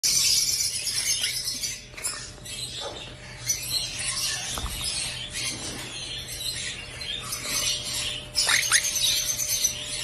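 Quaker parrots (monk parakeets) chattering over a constant high chirping of cage birds, with a few short squawks that drop in pitch near the end.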